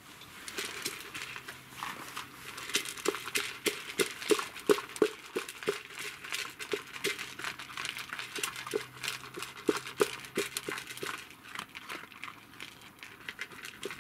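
Three dogs eating dry kibble from their bowls: rapid, irregular crunching and chewing clicks.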